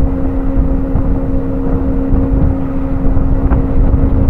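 Steady machinery hum on a chemical tanker's deck, one constant low tone, with wind buffeting the microphone as an uneven low rumble.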